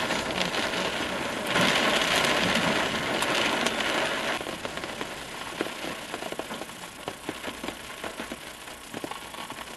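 Rain falling on a car's roof and windshield, heard from inside the car: a dense hiss of drops. It is heaviest from about a second and a half to four seconds in, then eases into lighter rain with scattered separate drop hits.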